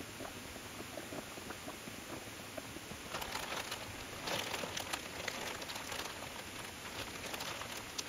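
Thin plastic bag liner crinkling and rustling as it is handled and smoothed into a basin, getting busier and louder about three seconds in and easing off near the end.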